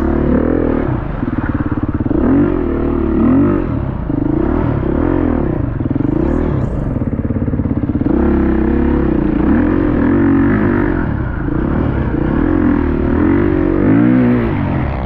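Dirt bike engine revving up and down again and again as the throttle is opened and closed.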